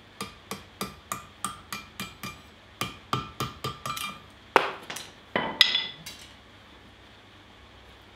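Blacksmith's hand hammer striking hot steel stock held in tongs on the anvil horn: quick ringing blows about three a second in two runs, followed by two louder ringing metal clanks.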